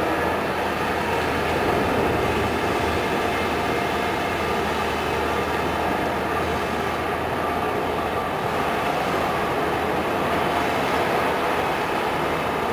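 Amphibious excavator's diesel engine running steadily under load as the long-reach boom swings and digs mud.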